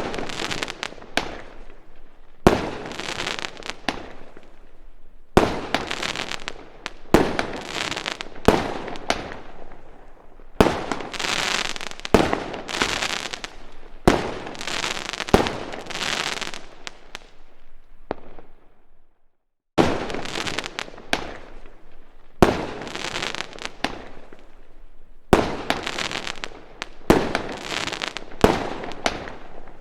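Fireworks going off in quick succession: sharp bangs, each trailing into about a second of crackling, one after another, with a brief silent gap about two-thirds of the way through.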